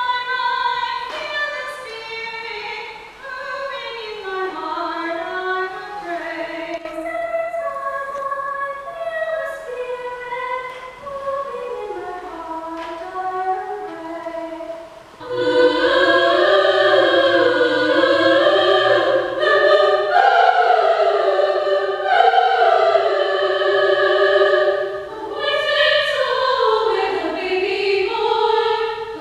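Girls' choir singing in a church; about halfway through, the singing suddenly grows louder and fuller.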